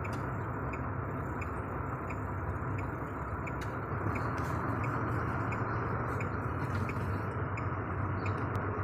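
Inside a vehicle's cabin: the engine running with a steady low hum, and an indicator relay ticking evenly about twice a second.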